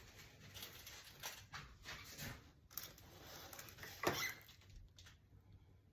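Faint rustles and soft knocks of a large paint-covered canvas being handled and tilted, the strongest about four seconds in, dying away near the end.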